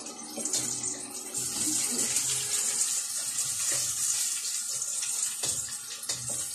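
Water running steadily, with a hissing rush like a kitchen tap left on.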